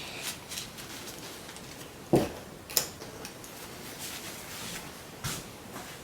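A few light knocks and clicks of the pole's small plastic end clips and parts being handled, about two seconds in, again just under three seconds, and near the end, over a faint steady hiss.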